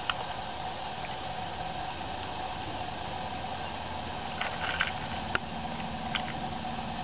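Steady outdoor background hiss with a faint steady hum, and a few soft clicks between about four and six seconds in.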